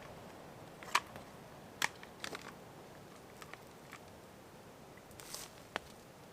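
A handful of sharp clicks and snaps at irregular intervals over a quiet background, the loudest about one and two seconds in, with a short rustle about five seconds in.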